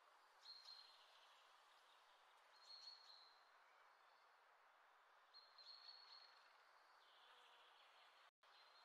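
Near silence: faint steady hiss with a few short, faint high-pitched chirps, cutting out for a moment near the end.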